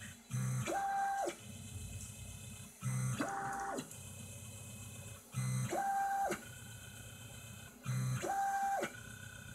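Stepper motors of a small CNC mill auto-levelling a PCB blank, repeating a probing cycle four times, about every two and a half seconds. Each cycle starts with a quick move whose whine rises in pitch, holds and falls, followed by a quieter, steady, high stepper whine as the tool creeps down to touch the board.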